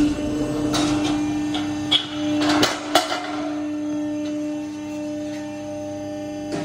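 Durma CNC press brake running with a steady hum, and a handful of sharp metallic clacks in the first three seconds as a sheet-metal part is handled against the tooling.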